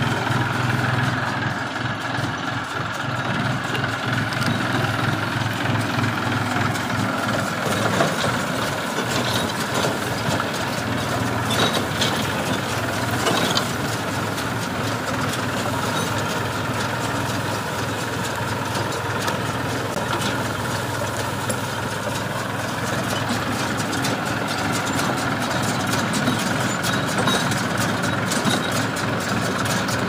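New Holland tractor's diesel engine running steadily, with rapid mechanical clatter and a few louder knocks about eight and twelve to thirteen seconds in.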